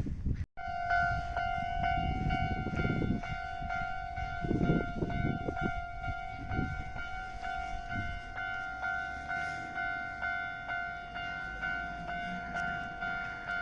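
Japanese level-crossing warning bell ringing steadily, just under two strikes a second, after a cut about half a second in. Through the first half a train runs past with a low rumble that fades by about the eighth second.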